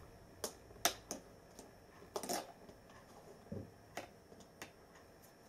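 Plastic-capped magnets being moved and set down on a magnetic whiteboard: a faint, irregular scatter of light clicks and taps, with a slightly longer scuff about two seconds in.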